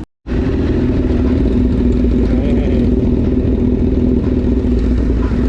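A vehicle engine running steadily at close range, loud and holding an even pitch.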